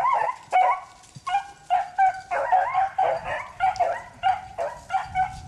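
A pack of beagles baying and yelping in quick succession, several voices overlapping, as they run a cottontail rabbit in hot pursuit.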